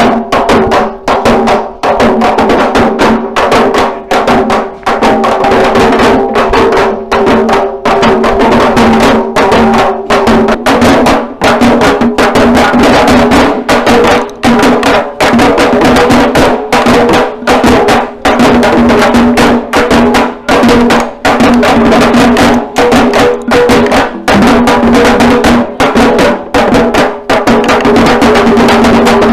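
Parai frame drums beaten in a fast, loud, driving rhythm, with a held melodic tone running over the strokes.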